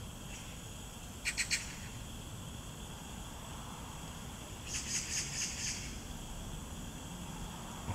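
Steady outdoor background hiss with two short runs of rapid, high chirping calls: three quick chirps about a second in, and a longer run of chirps a little before halfway through.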